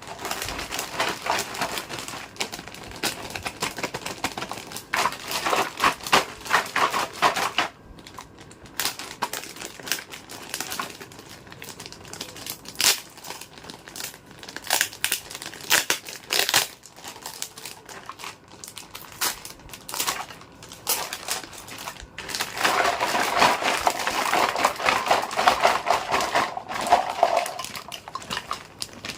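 Plastic packaging crinkling and rustling as a toy set is unboxed, with many small clicks and crackles. The crinkling is densest for a few seconds near the end.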